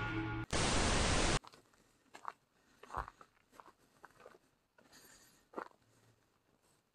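A loud burst of static-like hiss, about a second long, that cuts off abruptly, followed by faint, scattered crunching footsteps in dry grass and dead brush.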